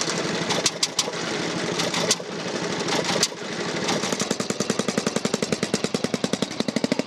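Veteran single-cylinder-era motorcycle engine running with a fast, even firing beat, broken by a few sharp clicks in the first three seconds. From about four seconds in the beat is stronger and steadier, as a 1911 Wooler (350cc) is pushed off with its engine running.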